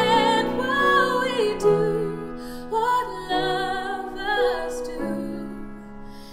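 A woman singing a slow ballad with piano accompaniment, her voice moving between held and gliding notes.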